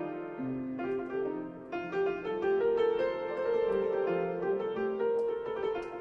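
Slow instrumental keyboard music, a piano-like sound playing held notes that change every half second or so.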